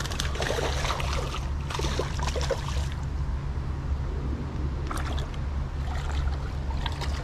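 A hooked bass splashing and thrashing at the water's surface as it is reeled in, in clusters during the first three seconds and again about five seconds in, over a steady low rumble.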